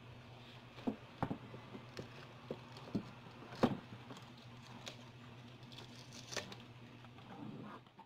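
Irregular knocks, thumps and rustling of people scuffling at close quarters, the loudest thump about three and a half seconds in, over a steady low hum.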